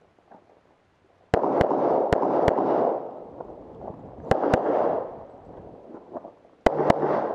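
Eight pistol shots fired in quick succession on a USPSA stage: a string of four starting about a second and a half in, a pair near the middle and another pair near the end, each group followed by ringing echo.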